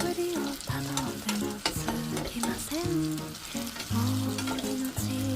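Food sizzling and frying in a pan, with stirring clicks, under background music with short bending synth notes.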